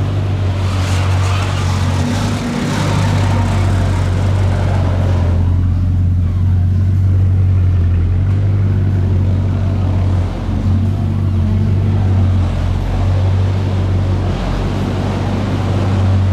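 Bugatti Chiron Sport's 8.0-litre quad-turbo W16 engine running steadily at low revs, a deep even hum with no revving.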